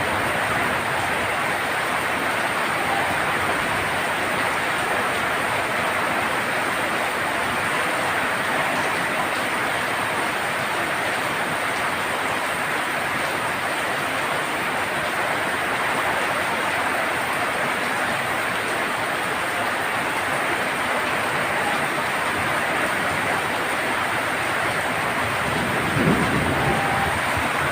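Heavy rain drumming steadily on a tin roof, a dense even hiss of drops. One brief louder low thump near the end.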